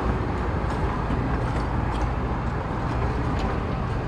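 Miniature park train running, heard from aboard: a steady low rumble of the engine and wheels on the track, with a few faint clicks.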